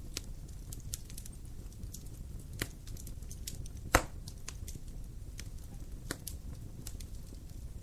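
Wood fire crackling: a low steady rumble of burning with scattered sharp pops and snaps, one louder pop about four seconds in.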